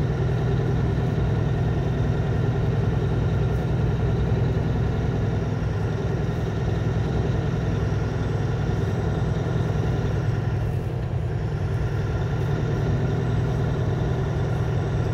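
Semi-truck's diesel engine and road noise heard from inside the cab while driving, a steady low drone that holds even throughout.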